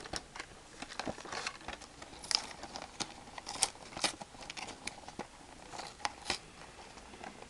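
Packaging of a trading-card structure deck being torn open and crinkled by hand: irregular rustling and crinkling with a few sharper crackles and rips.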